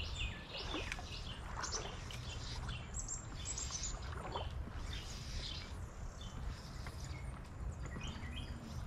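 Songbirds chirping and calling in many short notes throughout, over a steady low rumble.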